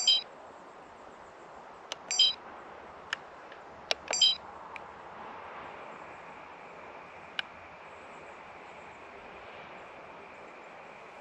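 Trail camera keypad being pressed: sharp button clicks, three of them each followed by a short high electronic beep about two seconds apart, then a couple of lone clicks, over a steady background hiss.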